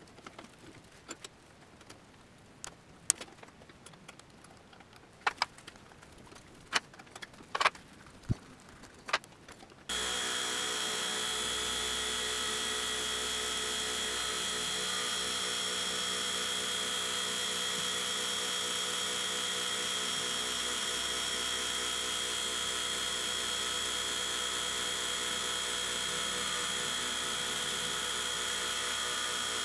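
Scattered metal clicks and knocks of a hex key and bolts as a stepper motor and nut housing are fitted to a CNC mill's axis. About ten seconds in, the home-built CNC mill's spindle starts running steadily with a milling cutter taking a light cut across a metal bar, a constant machining sound with a high whine that does not change.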